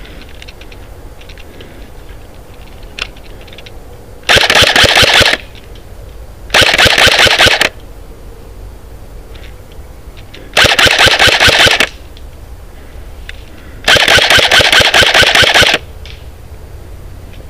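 Airsoft rifle firing on full auto: four bursts of rapid shots, each lasting one to two seconds, the last one the longest.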